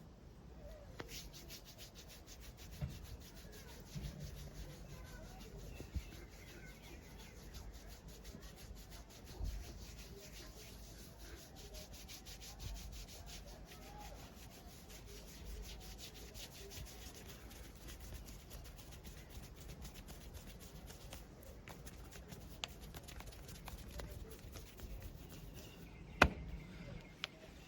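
Hands rubbing over the body with a fast, dense crackle of friction and a few soft thumps, then one sharp crack about a second before the end.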